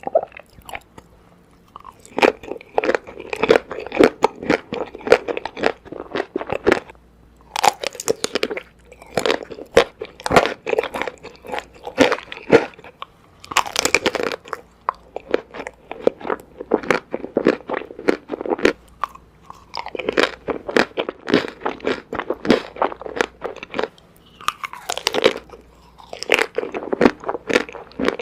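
Close-up crunching and chewing of chocolate-coated candy ice cream bars, crisp bites in quick runs broken by short pauses.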